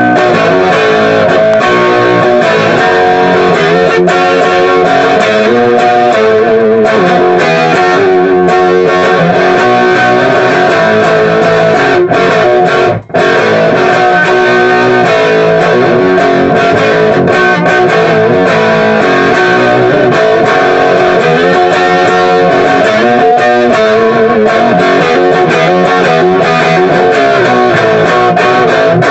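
Electric guitar music playing steadily, breaking off for a moment about thirteen seconds in.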